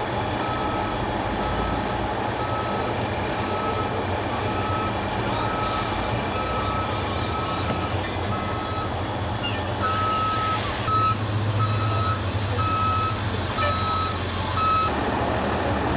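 A vehicle's reversing alarm beeping steadily, about two beeps a second, over an idling engine; the beeping stops near the end.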